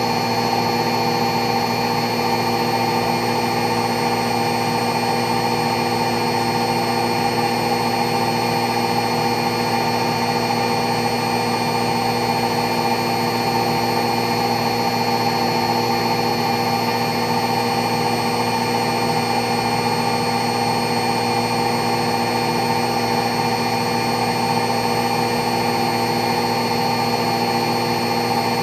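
Front-loading washing machine spinning its empty drum fast: a steady motor whine with a constant rush from the drum, holding at one speed throughout.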